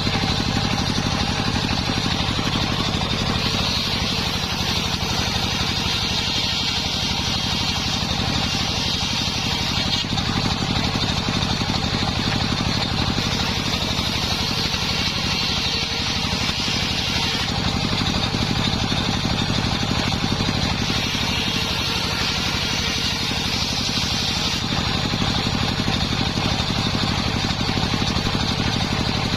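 Engine driving a homemade circular saw rig, running steadily, with a higher hiss that comes and goes every few seconds.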